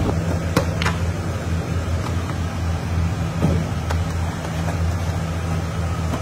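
Steady low mechanical hum of running machinery in a large kitchen hall, with a few light knocks and clicks as cardboard sweet boxes are handled and packed.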